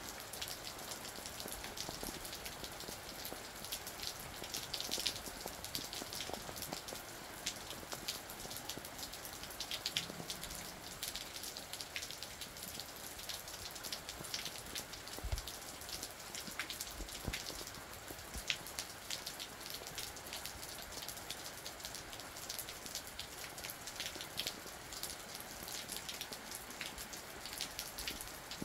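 Steady rain falling, an even hiss with many sharp drop ticks scattered irregularly through it.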